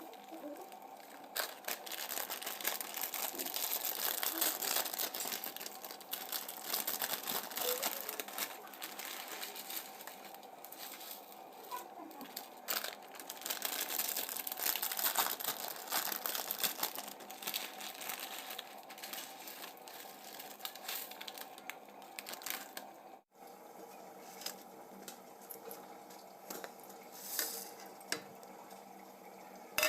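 Plastic packaging crinkling and rustling, with bouts of tearing and many small irregular crackles.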